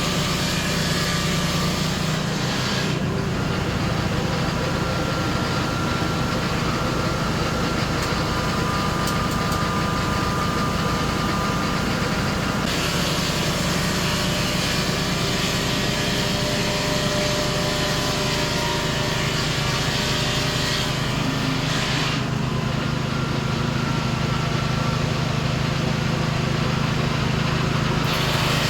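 Portable sawmill's engine running steadily with a constant low hum. A brighter hiss on top drops away about three seconds in, comes back around thirteen seconds, drops again around twenty-two seconds and returns near the end.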